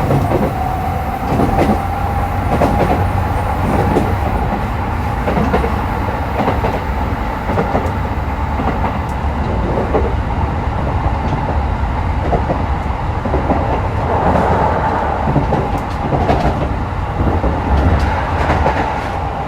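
Keikyu New 1000 series electric train running, heard from inside a motor car: a steady low rumble with a whine from the Toyo hybrid SiC VVVF inverter and traction motors, and repeated clacks of the wheels over rail joints.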